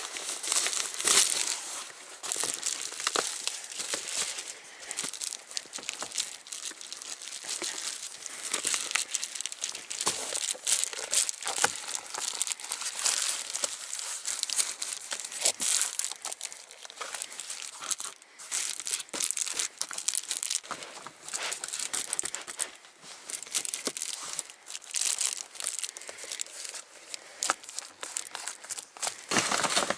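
Reflective bubble-foil insulation window covers crinkling and crackling as they are handled and pressed into a car's windows, a dense, irregular run of crackles and rustles.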